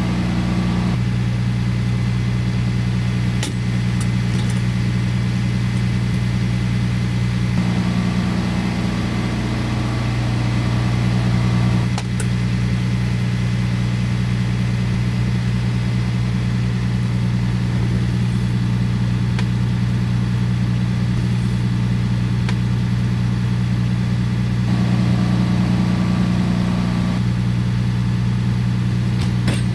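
John Deere 4044M compact tractor's diesel engine running steadily at an even speed, with a few brief knocks.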